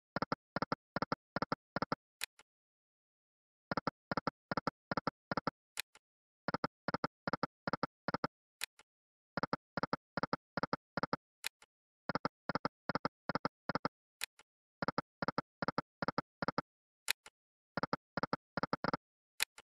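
Online slot machine game's reel sound effects: bursts of six or seven quick clicks, about four a second, as the reels spin and stop. A new burst comes every three seconds or so, spin after spin, most followed by a single faint high tick.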